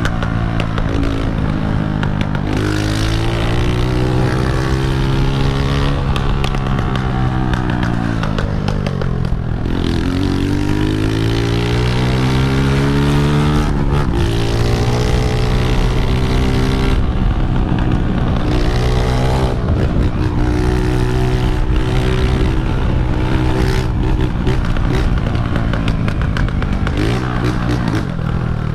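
Honda CG125's single-cylinder four-stroke engine running loud under a riding load, its pitch climbing and dropping again and again as the rider opens and closes the throttle through the gears, with the deepest drop and climb about ten seconds in.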